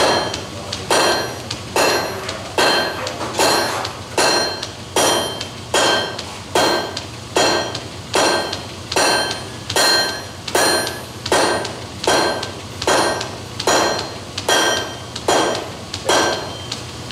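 Blacksmith's hand hammer striking a glowing hot iron bar on an anvil at a steady pace, a little over one blow a second. Each blow rings with a clear metallic tone.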